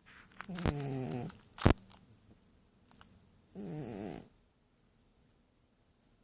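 Sleeping cat snoring: two short snores about three seconds apart, each under a second long, with quiet breathing gaps between. A sharp click, the loudest sound, comes just after the first snore.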